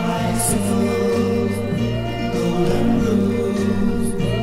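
Music from a 1964 pop record: singing over instrumental backing.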